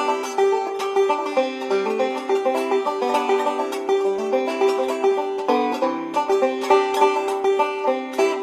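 Background music: fast, upbeat banjo picking in a bluegrass style, quick plucked notes over a ringing high drone string.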